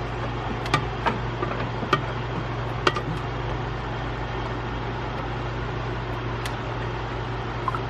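A few sharp clicks and clacks of hose fittings and tools being handled under the hood while a coolant hose is fitted to a degas bottle, mostly in the first three seconds and once more later, over a steady low background hum.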